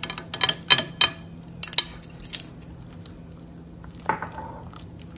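Metal spoon clinking against the side of a stone-coated pan while stirring simmering broth: several sharp clinks in the first two and a half seconds, then quieter, with a brief falling tone about four seconds in.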